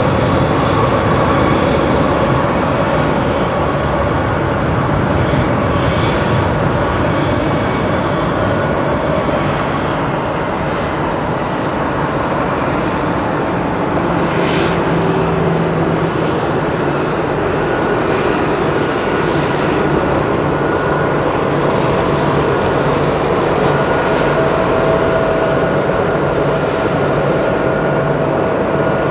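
Airbus A320-214's CFM56-5B turbofan engines running at low taxi power as the airliner taxis: a steady jet engine noise with a few faint held tones.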